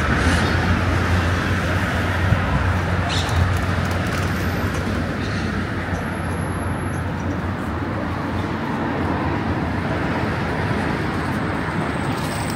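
Steady street traffic noise, a low rumble that eases off slightly after the first few seconds.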